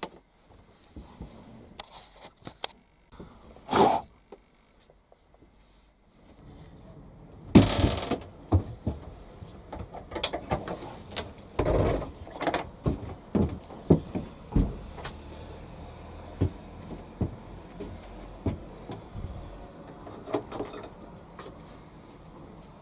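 Irregular knocks, bumps and thumps of objects being handled and moved about, with a few louder thuds and a busier stretch of smaller knocks in the second half.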